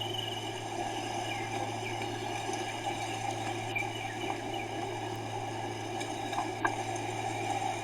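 Steady low electrical hum with a faint even hiss, the background noise of the recording, with no distinct event standing out.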